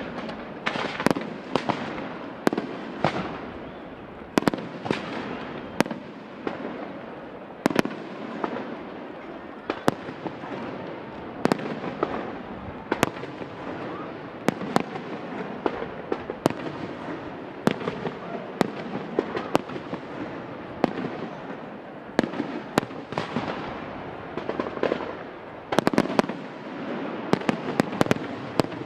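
Aerial fireworks display: shells bursting in an irregular run of sharp bangs, roughly one or two a second, over a steady wash of sound between them, with a quick cluster of bangs near the end.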